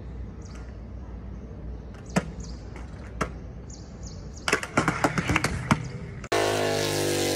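Small hard wheels of shoe roller skates clicking and knocking on stone paving, a few single clicks and then a quick flurry of knocks as the skater loses her footing and falls. About six seconds in, a sudden cut to a loud car engine running hard under the hiss of a tyre-spinning burnout.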